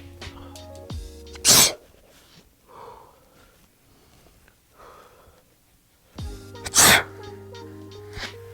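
A man sneezing loudly twice, about five seconds apart, with background music that drops out between the sneezes.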